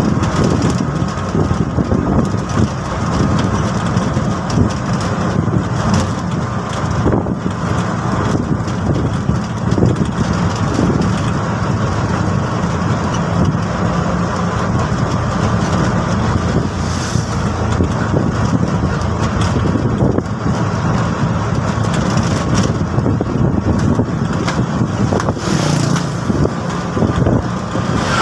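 TVS King Deluxe three-wheeler's engine running steadily while under way, heard from inside the cab along with road noise.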